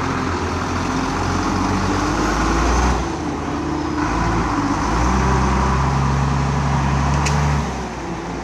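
Diesel engine of a Demag truck-mounted crane running under throttle as the crane is driven in reverse, its note rising and falling, easing off shortly before the end.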